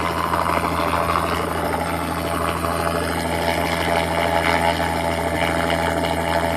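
A steady engine drone with a constant low hum and a noisy wash above it, even throughout.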